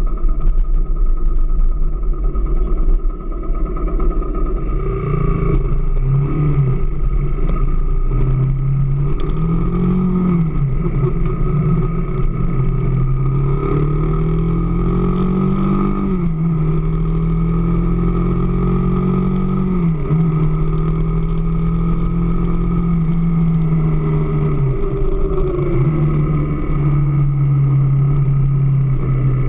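AKT DS 200 motorcycle engine running continuously, its pitch rising and falling as the throttle opens and closes, with brief dips now and then.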